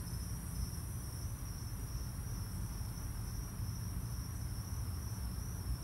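Crickets chirping in a steady, high-pitched chorus over a low, steady rumble.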